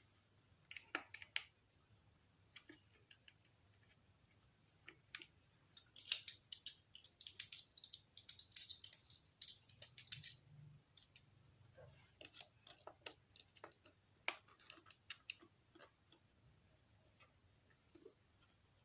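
Irregular small clicks, taps and scraping of hands working on stock parts during a buttpad mount repair, busiest in a run of quick strokes in the middle.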